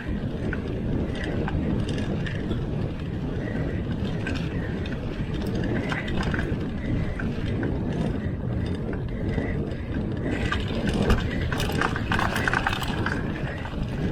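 Mountain bike being ridden over rough ground: a steady rumble of tyre and riding noise with scattered mechanical clicks and rattles from the bike. The clicking grows busier about ten seconds in.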